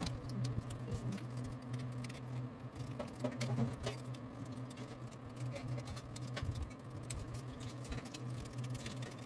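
Scissors snipping through cardboard in many short, irregular cuts, with a steady low hum underneath.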